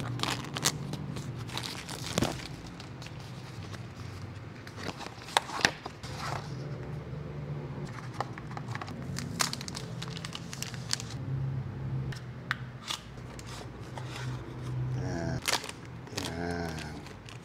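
Plastic wrap and cardboard packaging of a camera box being handled and opened: crinkling, tearing and rustling, with scattered sharp clicks and crackles.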